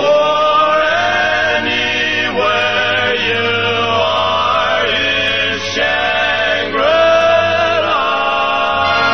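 Music: a vocal group singing long, held wordless harmony notes that change every second or two, over a low steady bass.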